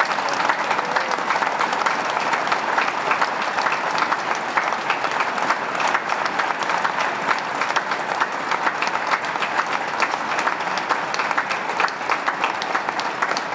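Large outdoor crowd applauding steadily, many people clapping at once.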